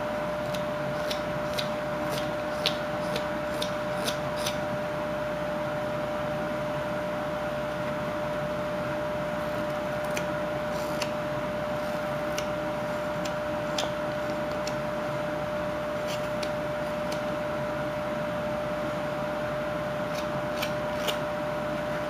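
Whittling knife cutting chips from a wooden carving blank: short crisp clicks in clusters, thickest in the first few seconds, again around the middle and near the end. Under it runs a steady hum with a constant whine.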